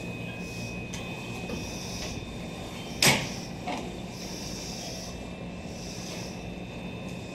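Meitetsu electric commuter train standing at the platform with its doors open, its equipment giving a steady low hum with a thin high whine. A single sharp knock about three seconds in, then a fainter one just after.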